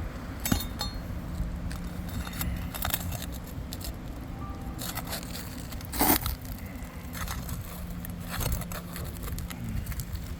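Scraping and scattered clicks of a tool working at three-tab asphalt shingles, with one louder knock about six seconds in.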